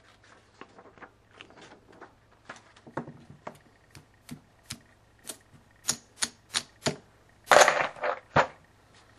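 A run of sharp clicks and clacks, spaced irregularly and growing louder, from small hard objects being handled and set down on a tabletop. A louder clatter about three-quarters of the way through, as the hand moves to the pail.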